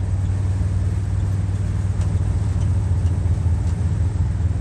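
1960 Ford F100 pickup cruising steadily in third gear, heard from inside the cab: a steady low engine drone with road noise. The engine is not yet fully warmed up.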